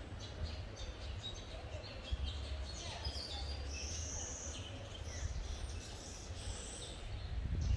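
Small birds chirping and calling: many short high chirps and quick sweeps, with one longer high whistled note about four seconds in, over a steady low rumble.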